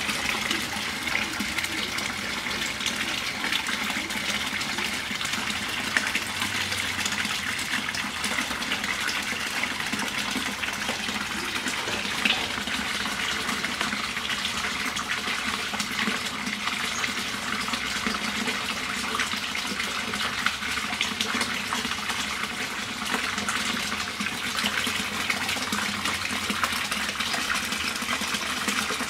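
Steady rush of running, splashing water in a goldfish pond, continuous and even, with a couple of brief ticks.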